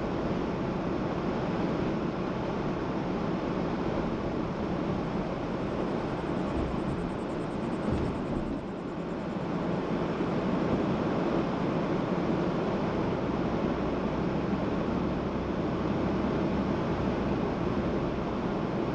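Steady road and tyre noise of a car being driven, with a brief dip about eight seconds in.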